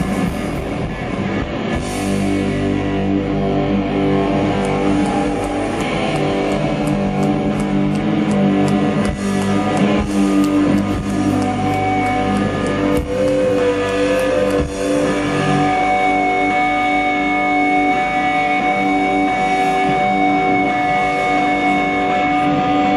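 Rock band playing live, with distorted electric guitars, bass and drums. From about two-thirds of the way in, two long held guitar tones ring on steadily over the band.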